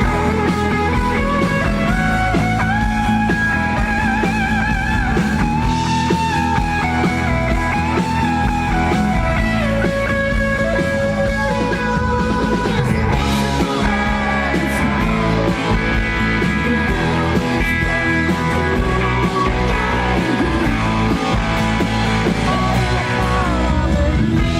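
Rock music led by electric guitar, with long wavering held notes over a steady bass and drums.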